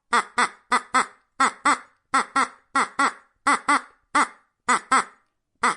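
Duck quacking: short, nasal quacks mostly in quick pairs, the pairs repeating evenly about every two-thirds of a second.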